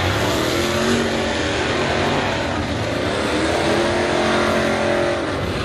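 A pack of dirt late model race cars' V8 engines running together on a dirt oval, with overlapping engine notes that rise and fall as the cars go through the turn.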